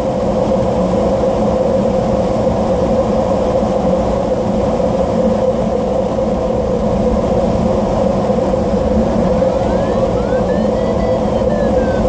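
Steady rush of airflow inside a DG1000 glider's cockpit, loud and constant, with a strong steady note in it. Late on, a thin electronic tone from the audio variometer comes in, sliding up in pitch and then settling a little lower, the sign of the glider's climb rate changing in ridge lift.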